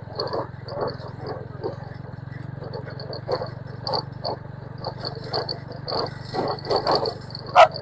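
A motorcycle engine runs steadily at low speed under a dog yelping in short, repeated bursts, loudest near the end. An insect chirps in quick, high pulses.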